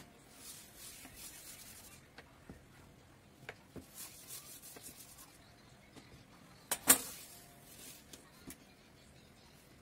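Kitchen knife sawing through a soft rolled dough log on a wooden board, a rhythmic rubbing and scraping with light clicks as the blade meets the wood. A single sharp knock comes about seven seconds in.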